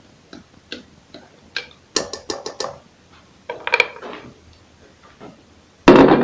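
A spatula tapping and scraping against a mixing bowl as cake batter is poured into the baking pan: light ticks, a quick run of sharp clicks about two seconds in, and one loud knock near the end.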